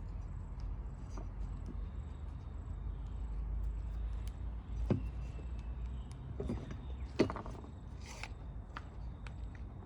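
Small clicks, scrapes and rattles of hands handling a lawn-mower recoil starter and its pull rope while the knot is tied, with two sharper clicks about five and seven seconds in. A steady low hum runs underneath.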